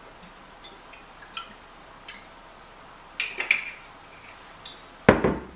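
A glass olive oil bottle handled over a frying pan: scattered small clicks and taps, a louder clatter a little over three seconds in, and a sharp knock near the end as the bottle is set down.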